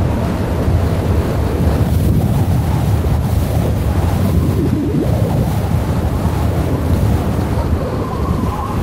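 Wind rushing and buffeting the microphone: a steady, loud low rumble with a rushing hiss over it.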